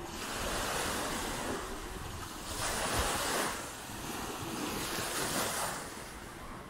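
Sea waves breaking and washing up a sandy beach: three surges of surf, each swelling and falling away, a couple of seconds apart.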